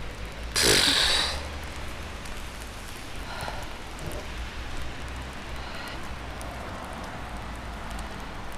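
Steady hiss of rain falling, with a low rumble underneath. A short, loud whoosh of noise comes about half a second in.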